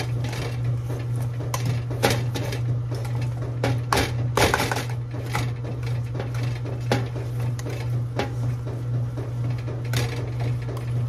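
Kitchen clatter: dishes and utensils knocking and clinking at irregular intervals, over a steady low hum.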